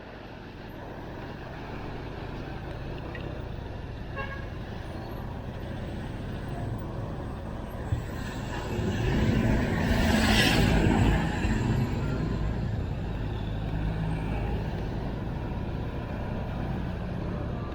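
Steady vehicle engine rumble, with another vehicle passing close about halfway through, louder for a few seconds.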